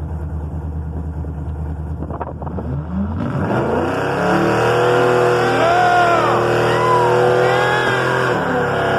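Drag-racing vehicle's engine idling with a low rumble, then revving up about three seconds in and held at high revs for some five seconds, easing back a little near the end.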